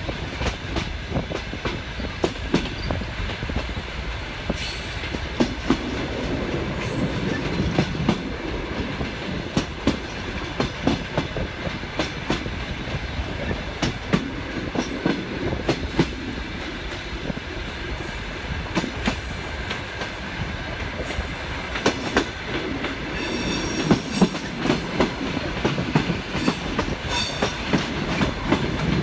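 Passenger train wheels clacking irregularly over rail joints and points, heard from the carriage window, with a continuous running rumble underneath. Brief high wheel squeals come in twice, about three-quarters of the way through.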